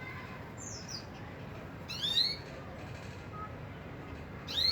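Canary chirping in short bursts: a brief falling note near the start, a louder cluster of quick rising notes about two seconds in, and another short rising burst at the end, over steady background noise.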